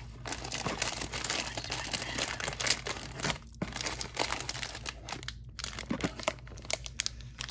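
A hand rummaging through crinkle-cut shredded paper filler in a cardboard box, an irregular rustling and crinkling with a couple of short pauses, then a cellophane-wrapped item crinkling as it is lifted out near the end.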